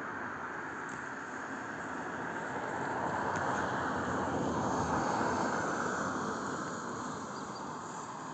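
A passing vehicle: a steady rushing noise that swells to a peak about five seconds in and then fades away.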